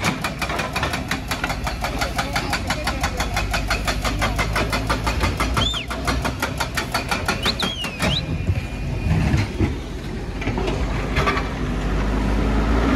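Diesel engine of a Kobelco crawler excavator working, with a rapid, even clatter for about the first eight seconds, then a deeper, steadier engine sound that grows louder near the end.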